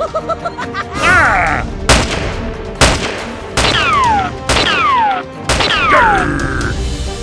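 Five edited-in shot sound effects about a second apart, each a sharp crack followed by a falling whistle, over background music.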